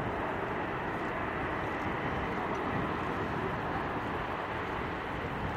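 Jet airliner engine noise, a steady even rumble and hiss that neither builds nor fades.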